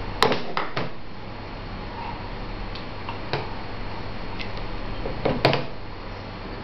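A plastic bowl knocking on a plastic high-chair tray while a baby feeds himself. There is a sharp knock just after the start and two smaller ones right after it, another around the middle, and a close pair near the end, over a steady low hum.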